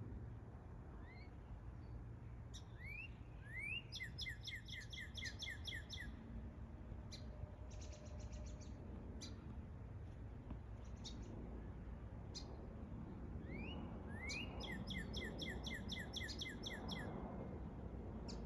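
A songbird singing twice, each phrase a rising note followed by a quick run of even, repeated notes, with short single call notes between the phrases. Behind it, a low steady rumble of a jet airliner passing overhead grows slightly louder near the end.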